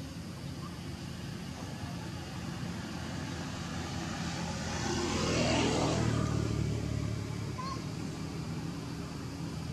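A motor vehicle passing by: it grows louder to a peak about halfway through, then fades away, its pitch falling as it goes past.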